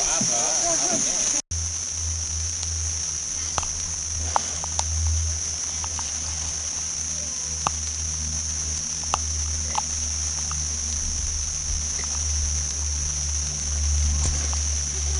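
Insects droning steadily in a high pitch. After about a second and a half a steady low rumble joins in, with a few short clicks scattered through it.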